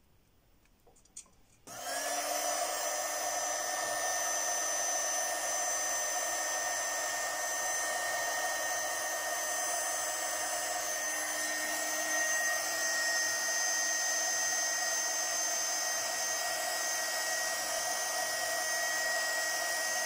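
Heat gun switched on about two seconds in, then blowing hot air steadily with a high whine, shrinking heat-shrink tubing over the freshly soldered wires of an XT60 battery connector. A small click comes just before it starts.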